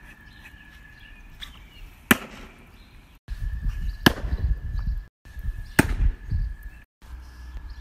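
Pitched baseball striking a catcher's mitt three times, about two seconds apart, each a single sharp hit.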